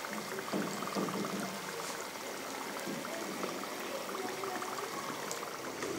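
Pastry-wrapped chicken patties deep-frying in hot oil: a steady bubbling sizzle with fine crackles.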